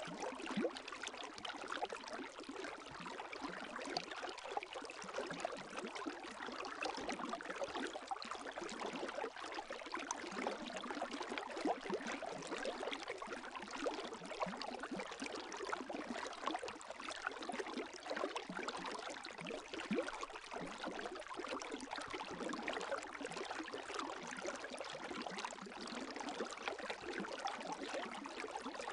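Gentle lake waves lapping, a steady run of small splashes and trickles with no large surges.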